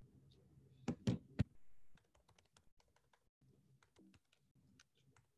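Computer keyboard typing: three louder key clicks about a second in, then a run of faint, quick keystrokes.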